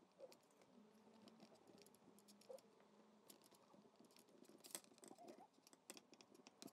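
Near silence, broken by a few faint scattered taps and knocks as small cucumbers are packed by hand into a three-litre glass jar.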